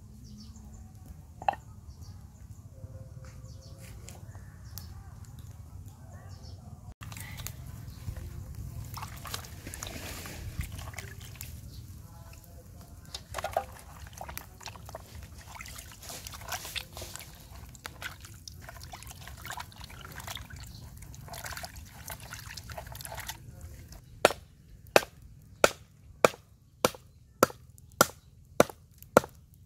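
Water sloshing in a plastic basin as raw pork ribs are rubbed and washed by hand, then a cleaver chopping through the pork rib rack on a wooden chopping block, about ten sharp, evenly spaced chops near the end.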